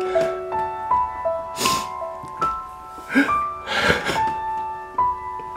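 A slow, sad piano melody, over which a man cries theatrically, with several sobbing breaths and sniffles and a short whimper about three seconds in.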